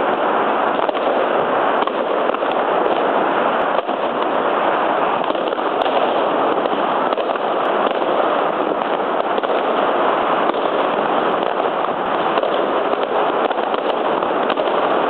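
Many fireworks going off at once all around, their bangs and crackles merging into a dense, continuous din with occasional sharper cracks standing out.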